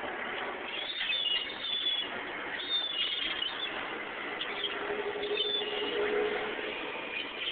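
Birds chirping at feeding time, short high chirps scattered over a steady background hiss. A low steady hum sounds for about two seconds in the middle.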